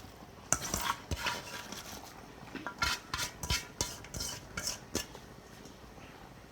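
A metal spoon or ladle stirring in a cooking pot, clinking and scraping against the pot in a quick run of strokes that stops about five seconds in.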